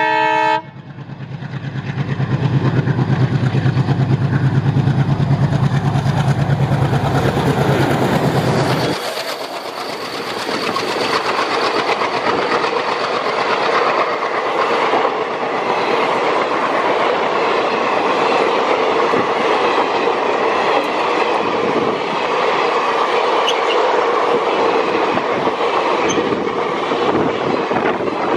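WDM3A ALCO diesel-electric locomotive: a horn blast ends about half a second in, then the engine throbs loudly, growing as the locomotive draws near and passes. About nine seconds in the engine sound drops away, and the passenger coaches roll past with a steady clickety-clack of wheels over the rail joints.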